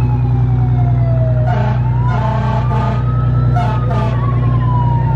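Fire truck siren wailing over the truck's running engine. The tone slides slowly down, climbs again to a peak about three and a half seconds in, then starts falling.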